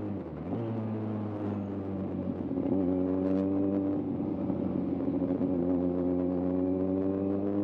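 Kawasaki Z1000's inline-four engine running, its pitch dipping briefly at the start, then holding steady and slowly rising.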